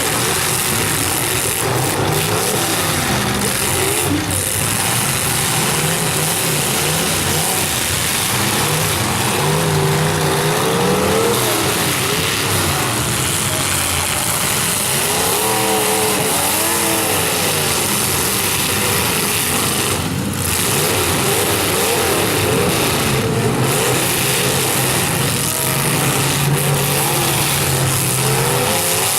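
Several demolition derby cars' engines revving at once, their pitches rising and falling in overlapping surges.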